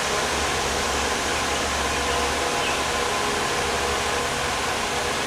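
Steady rushing noise of a running blower, with a faint hum under it.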